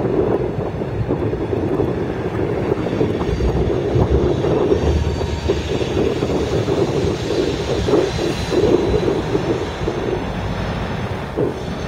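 Freight train moving slowly past at close range: a loaded covered hopper car being shoved by diesel locomotives, with a steady rumble of engines and steel wheels on the rails.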